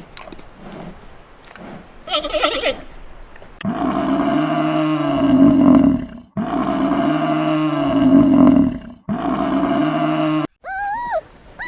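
A large animal's deep, loud call, sounded three times in a row, identical each time. A short high chirp follows near the end.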